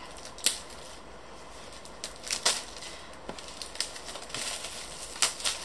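Clear plastic shrink-wrap being peeled off a laptop box and crumpled by hand: irregular sharp crinkles and crackles, loudest about half a second in and again about five seconds in, with light handling knocks on the box.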